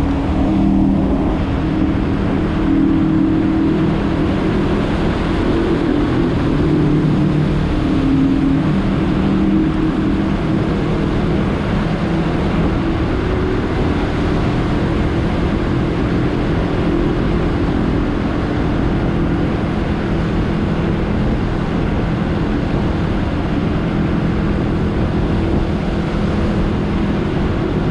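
Suzuki GSX-S125's single-cylinder engine running under way, its note shifting in pitch a few times in the first half and then holding steady, over a constant rushing noise.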